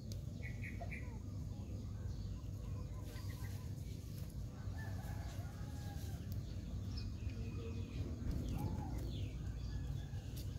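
Scattered faint, short animal calls, some rising and falling in pitch, over a steady low rumble.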